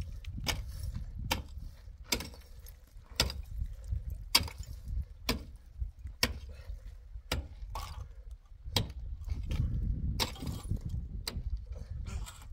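Repeated sharp knocks, roughly one a second and uneven in spacing, with a brief ring after some of them, over a steady low rumble.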